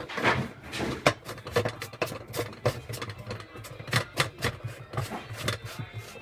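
Parts of a dishwasher being screwed back together: a run of irregular clicks and knocks, a few a second, over a low hum that comes and goes.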